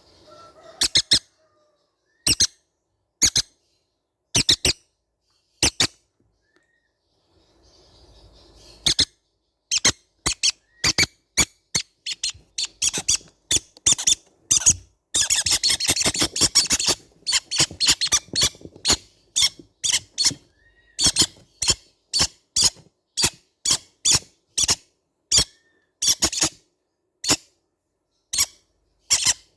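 Baby green-cheeked conures giving short, sharp squeaky calls: single calls with gaps at first, then from about nine seconds in a rapid, near-continuous run of calls that overlap at their busiest in the middle.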